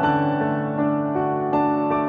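Background piano music, a new sustained note or chord struck about every 0.4 seconds.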